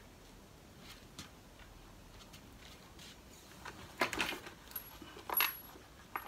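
Handling noise: sharp clicks and light clatter, a cluster about four seconds in and another about a second later, as the rebreather's scrubber canister is lifted and fitted into the backpack frame.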